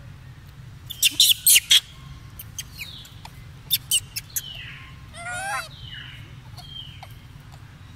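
High-pitched animal calls: several short, falling chirps and a wavering squeal about five seconds in, among loud, sharp clicks around one second and again near four seconds.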